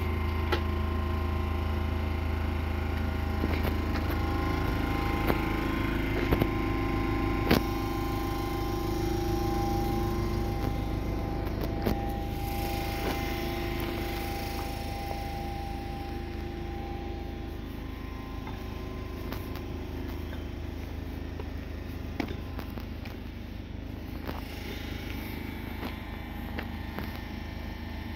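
An electric multiple-unit train standing at the platform gives a steady hum of its onboard equipment, with several held tones over a low drone. The drone is strongest at the start and the whole sound fades gradually through the second half. A few sharp clicks come in the first several seconds.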